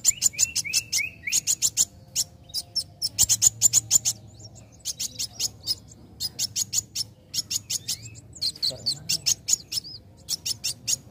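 Young sunbird (the 'kowul' of Indonesian bird keepers) singing in full voice: rapid runs of sharp, high, ticking chirps, several a second, broken by short pauses, with a few brief whistled notes sliding up and down.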